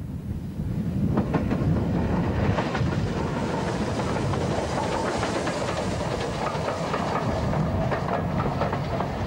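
Steam-hauled passenger train passing close by: a swelling rumble of wheels, loud from about a second in, with a steady clatter of wheels over the rail joints as the coaches go by.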